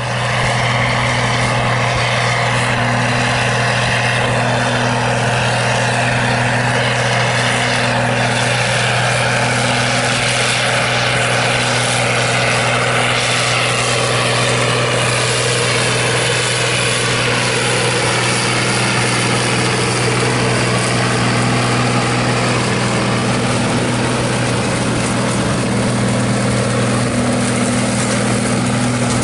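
International 5288 tractor's turbocharged six-cylinder diesel running steadily under load while pulling a six-bottom moldboard plow, a continuous drone.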